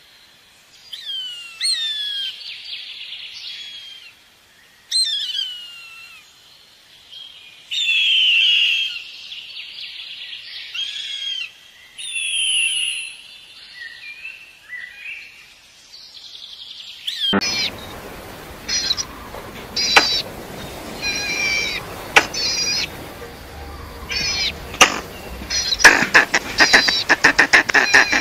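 Bald eagle calling: a series of high, thin whistled notes, each falling in pitch, with some longer screechy stretches. About 17 seconds in, the sound cuts abruptly to a noisier scene of repeated short high calls and sharp clicks over rough background noise.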